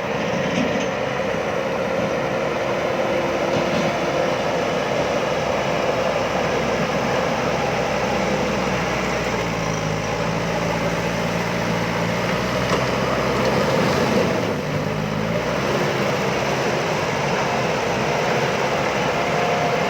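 Diesel engine of a JCB backhoe loader running steadily. A deeper droning hum joins it for about five seconds midway, then drops away.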